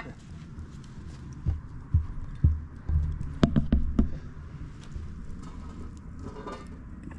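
A cluster of dull thumps and a few sharp knocks from about one and a half to four seconds in, over a steady low background.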